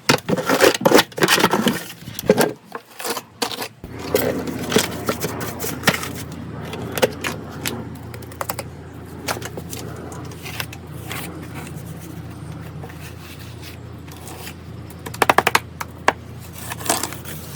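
Wet pool-patch compound being scraped and worked onto a pool surface with a hand tool, in quick strokes for the first few seconds and then sparser scrapes. A steady low hum comes in about four seconds in, and a quick rattling run of clicks sounds near the end.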